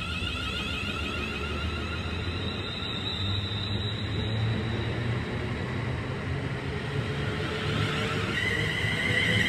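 London Midland Class 350 Desiro electric multiple unit pulling away from the platform: low rumble of the wheels with the high whine of its traction motors. Near the end a whine rises in pitch and holds as the train gathers speed.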